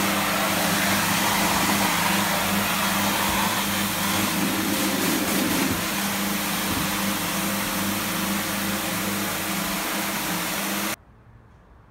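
Floor-cleaning machines working a wet slate tile floor: a rotary scrubbing machine and a vacuum extraction unit run with a steady motor hum under a loud hiss. The sound cuts off abruptly near the end.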